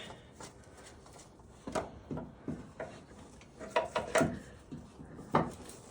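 Faint scrapes and light knocks as an oil filter is unscrewed by hand, in a few short scattered bursts.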